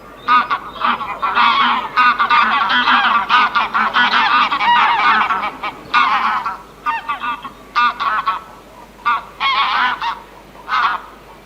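Geese honking, many calls overlapping for about the first six seconds, then shorter separate bursts of honks with gaps between them.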